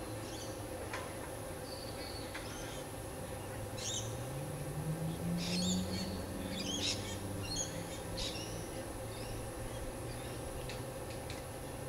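Wild birds calling: a run of short, high chirps and whistles, thickest through the middle seconds, over a low hum that rises in pitch about four seconds in.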